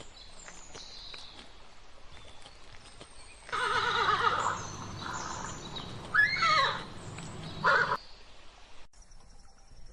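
An animal calling: about three and a half seconds in, a loud quavering whinny-like call starts, followed by a shorter call that rises and falls and a brief one near the end. The sound then cuts off abruptly.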